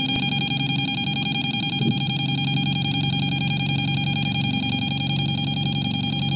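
EMF meter beeping continuously in a fast, unbroken pulse, its needle pegged at the top of its 0–5 milliGauss scale: it is reading a strong magnetic field from high-voltage power lines overhead. A low steady hum sits beneath.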